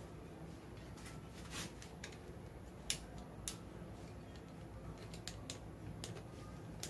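Red snap-off utility knife cutting the toe-cap stitching of an old CCM Tacks 352 hockey skate: a few irregular, sharp clicks as the blade cuts through stitches, the loudest about three seconds in, over a faint low hum.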